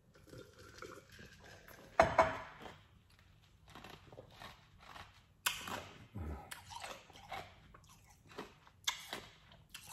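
A drink of ice water from a glass mason jar, then the jar set down on a stone countertop with a sharp knock and a clink of ice about two seconds in. Scattered mouth clicks and crunches of chewing follow.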